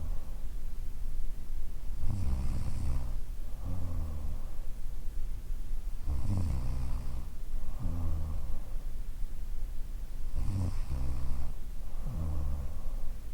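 A woman in her thirties snoring in her sleep: a snore on each breath in and another on each breath out. The pattern repeats at about one breath every four seconds, three breaths in all.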